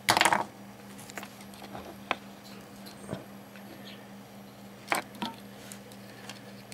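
Small handling noises on a workbench: a short clatter at the start, then a few scattered clicks and light rustles as insulated wires and a small plastic display are handled, over a steady low hum.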